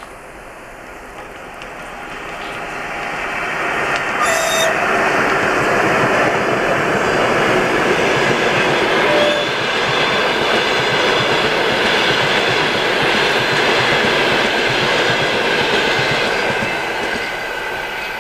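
ChS7 electric locomotive hauling a passenger train past: the rumble and clatter of wheels on rails grows over the first few seconds, holds steady as the coaches roll by, and fades near the end.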